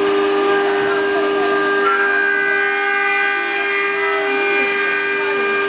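Multi-spindle 4-axis CNC wood router running, its spindles whining at a steady pitch while the cutters carve wooden workpieces held on rotary axes. More high tones join about two seconds in.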